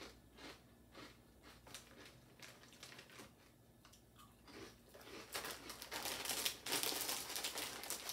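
Crunching of pulled-pork-flavoured crisps being bitten and chewed, scattered sharp crunches, then a plastic crisp bag crinkling loudly and continuously from about five seconds in as it is handled.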